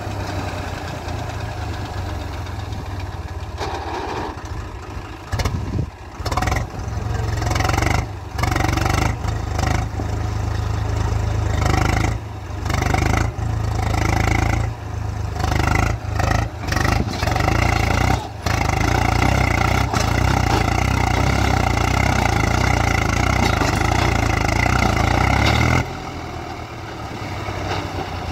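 Swaraj 735 XT tractor's three-cylinder diesel engine running hard under load as it tries to drag a loaded sand trolley out of soft sand. The sound keeps breaking off for split seconds through the middle, then holds steady and loud before easing near the end.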